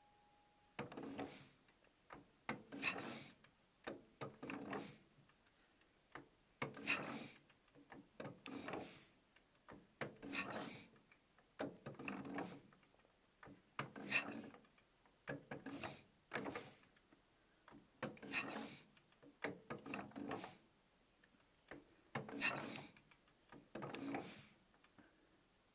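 Faint, rhythmic knocking: a pair of short knocks repeated evenly about every two seconds.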